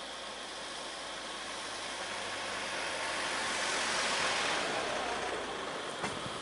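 Motor vehicles running on a road, with a rushing noise that swells to a peak around the middle and fades, and a single sharp click near the end.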